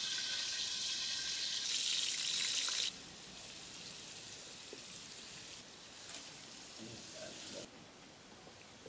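Prawns sizzling as they fry in hot oil in an aluminium pot. The sizzle is loud for about three seconds, then drops suddenly to a quieter, steady hiss.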